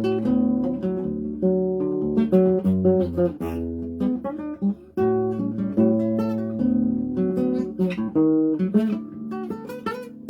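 Acoustic guitar playing a choro: a plucked melody over a moving bass line.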